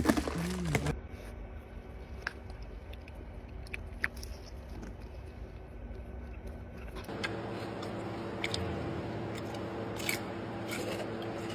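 Chewing with scattered short crunches over a steady hum; the hum gets louder a little past halfway.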